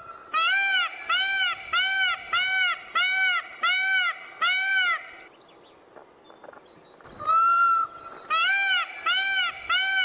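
Indian peafowl (peacock) calling: a run of loud, short honking calls at about two a second. After a pause of about two seconds comes one long drawn-out note, then another run of the same short honks.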